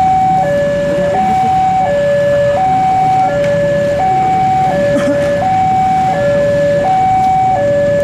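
Electronic railway level-crossing alarm sounding a steady high–low two-tone warning, each tone held about two-thirds of a second, over the low rumble of a passing train.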